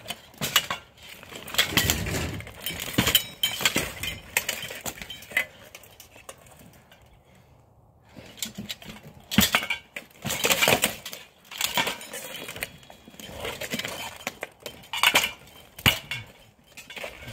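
Steel plate armor clanking and scraping as two armored fighters grapple on the ground, in irregular clattering bursts with a lull of a few seconds midway.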